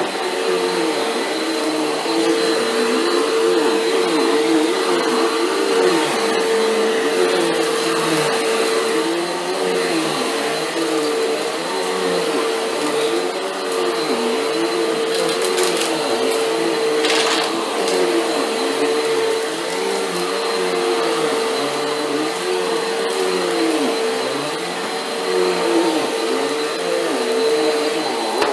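Oreck upright vacuum cleaner running on carpet, its motor pitch dipping and recovering about once a second with each push and pull stroke. A few brief crackles in the middle are grit and debris being sucked up: the crunchy pickup of a carpet pre-vacuum.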